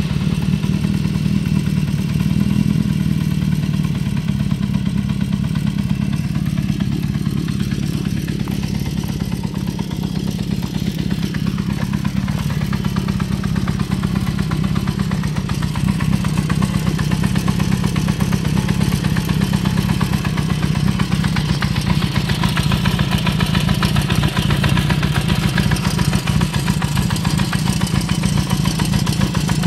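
Honda CB400Four's air-cooled 408 cc inline-four engine idling steadily.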